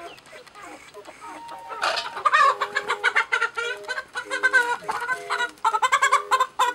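Domestic hen squawking loudly in rapid, agitated calls from about two seconds in, as she is caught and picked up by hand.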